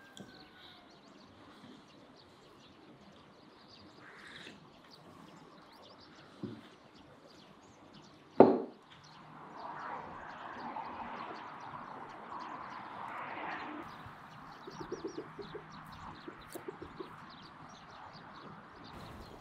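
Farmyard chickens and a turkey, mostly quiet. One short, loud sound comes about eight seconds in, and a run of quick clucks comes in the last few seconds.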